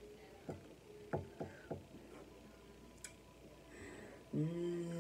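A few faint, short mouth clicks from chewing, then, about four seconds in, a woman's hummed "mmm" begins at one steady pitch and is held.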